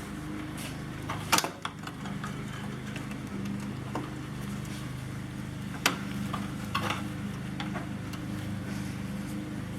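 Metal clinks, knocks and scraping from hand tools working on an old truck bench seat's steel frame: a sharp clank about a second in and a few more near the middle, over a steady low hum.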